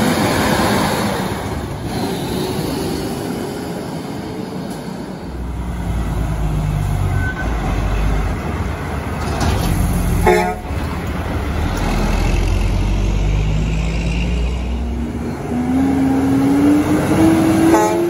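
Semi-trucks passing with their diesel engines rumbling. A short air horn blast sounds about ten seconds in, and an engine note rises near the end as a horn starts again.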